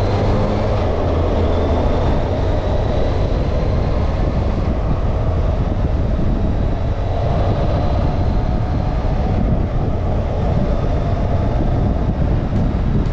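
Motorcycle running at a steady pace, its engine hum mixed with wind and road noise, unchanging throughout.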